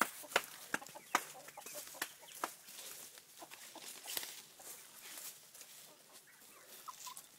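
Chickens clucking softly, with quick footsteps on dirt and brush during the first couple of seconds.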